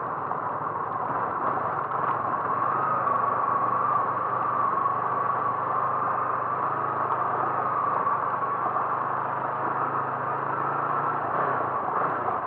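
A motor vehicle running steadily, its engine hum under even road noise.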